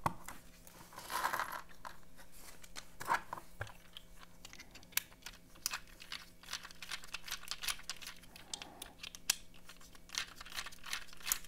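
A small plastic parts bag crinkling as it is handled, then a run of light, quick clicks and taps as a hand screwdriver's bit works the screws of a small metal lock-pick handle to take it apart.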